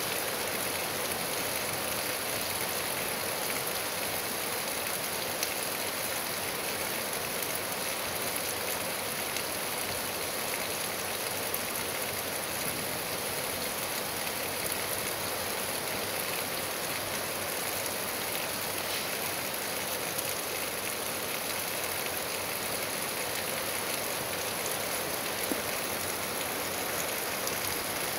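Steady rain falling, an even hiss without let-up, with a few faint drop ticks.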